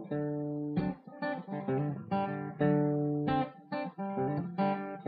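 Intro music on guitar: plucked and strummed chords struck one after another, each ringing and fading.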